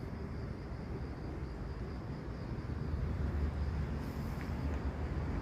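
Grass insects trilling in a steady, high, continuous tone over a low rumble that grows a little louder about three seconds in.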